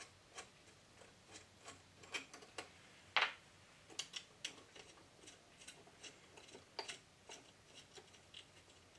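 Faint, irregular metallic clicks and ticks as loosened cylinder-head bolts are turned out by hand from a small air compressor, one sharper click about three seconds in.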